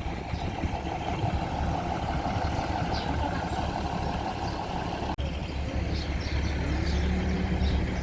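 Diesel passenger train's engine running steadily, a low rumble that breaks off for an instant about five seconds in.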